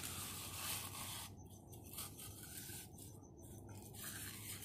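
Hand concrete edger scraping and rubbing along the edge of a partly set concrete sidewalk slab, in a few strokes, to round and smooth the edge.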